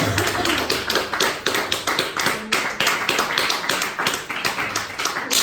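A fast, dense run of sharp taps or claps, several a second, going on without a break.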